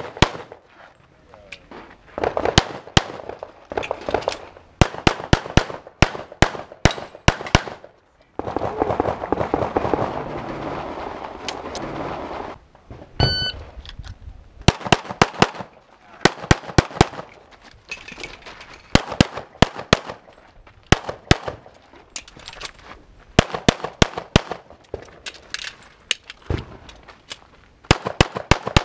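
Rapid pistol gunfire from a practical shooting stage run: sharp shots in quick pairs and strings, with a pause of about four seconds near the middle and a short electronic beep just after it.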